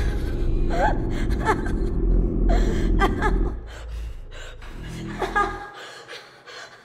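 A woman sobbing and gasping in short, broken cries that slide up and down in pitch. A low rumbling drone runs under the first half and stops about halfway through.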